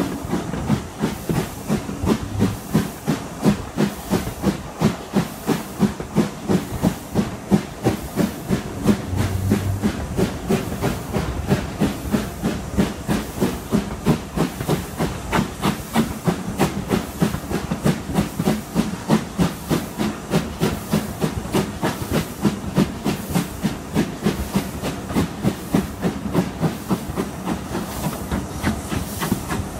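LNER B12/3 4-6-0 steam locomotive 8572 pulling its train, its exhaust beating steadily at about three chuffs a second, heard from the carriage right behind the tender.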